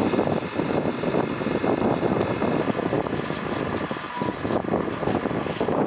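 Fire engine's pump running hard while a hose jet of water plays on a burning car: a loud, steady, rough rush of engine and spray noise, dipping briefly about four seconds in.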